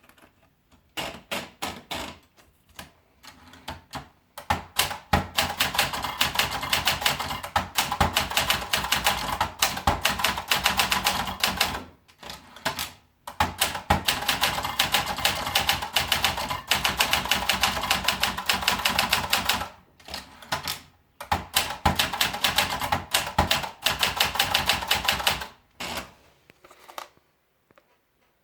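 Olympia Splendid 33 portable manual typewriter being typed on: fast runs of keystrokes broken by several short pauses, stopping about a second before the end.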